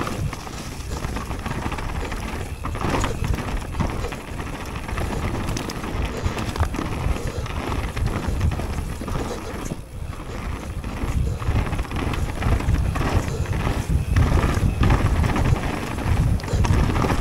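Mountain bike descending a leaf-covered dirt trail: tyres rolling over dirt and leaves, the bike rattling with frequent knocks over bumps and roots, and wind rumbling on the chest-mounted action camera's microphone, growing louder near the end.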